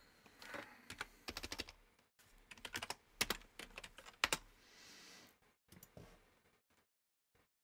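Typing on a computer keyboard in quick runs of keystrokes, then a few separate clicks near the end.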